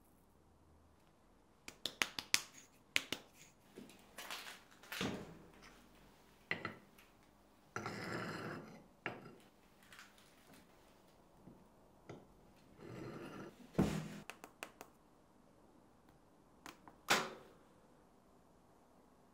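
Handling sounds in a small room: a run of sharp clicks and taps, then short scrapes and rustles and a low knock, from a metal spoon tapping powder into a plastic funnel and from pieces being loaded into an electric kiln.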